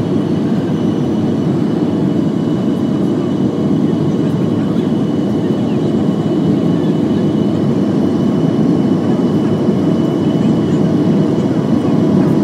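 Jet airliner cabin noise during the climb after takeoff: the engines and rushing air heard from inside the cabin as a steady low rumble.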